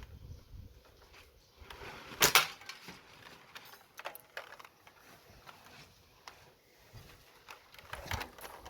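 Homemade catapult rifle firing: a single sharp snap of the bands about two seconds in, with a softer knock near the end, over faint rustling.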